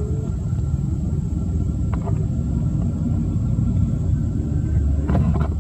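Steady low rumble, with a faint click about two seconds in and a few more near the end.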